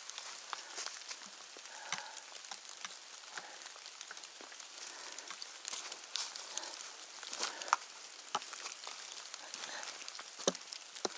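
Steady rain pattering on forest foliage, with scattered crackles and snaps of footsteps through wet undergrowth and leaf litter.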